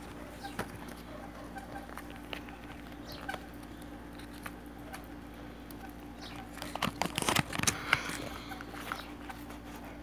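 Packaging being handled and opened: scattered light taps and rustles, with a denser burst of crinkling and scraping about seven seconds in, over a steady low hum.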